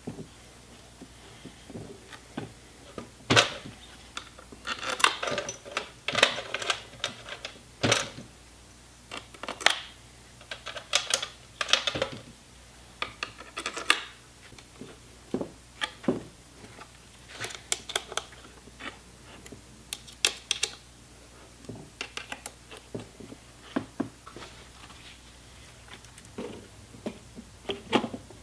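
Irregular clicks, taps and knocks of hand tools and small metal and plastic parts being handled while a cleaned throttle body is refitted to the engine's intake.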